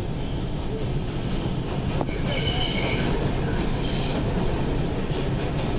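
New York City subway train running on the rails, heard from inside the car: a steady low rumble of wheels on track. High-pitched wheel squeals come in about two seconds in and again about four seconds in.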